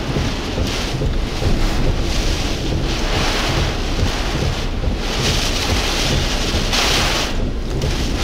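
Hurricane-force wind buffeting the microphone, rushing in gusts that rise and fall over a constant low rumble, the strongest gust about seven seconds in.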